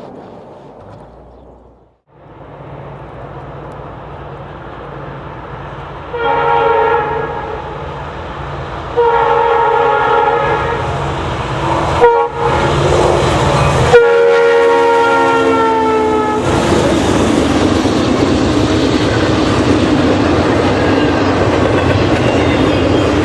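Approaching Norfolk Southern diesel locomotive sounding its multi-note horn in a long, long, short, long pattern, the grade-crossing signal, over a steady engine hum. The locomotive then passes close, its engine and wheels on the rails loud and steady.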